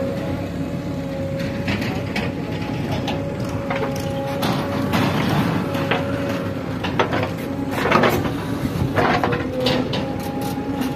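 A JCB 3DX backhoe loader's diesel engine runs steadily with a constant whine under load. Knocks, scraping and rushes of falling soil come from the bucket digging and dumping, the loudest burst about eight seconds in.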